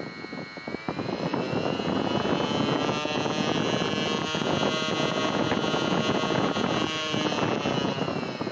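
Homemade PVC blower with a six-blade impeller, driven by an RS-550 DC motor, running with a high motor whine over rushing air. About a second in, the whine rises in pitch and gets louder as the speed controller is turned up. It holds steady, then eases down in pitch near the end.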